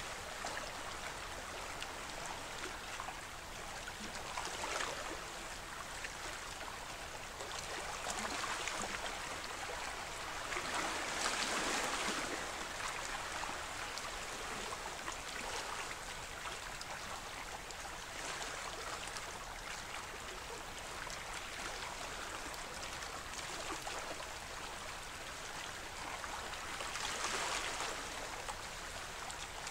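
Small waves lapping and washing over shoreline rocks, a steady splashing rush that swells now and then, loudest about eleven seconds in and again near the end.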